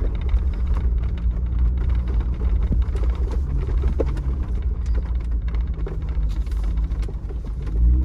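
A 4WD's engine heard from inside the cabin, a low steady drone while crawling along a rough dirt track, with a few light knocks and rattles from the body and track. The engine revs rise near the end.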